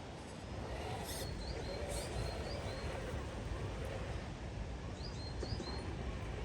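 Small birds chirping in short, quick high notes, in two clusters, over a steady low rumble of outdoor background noise.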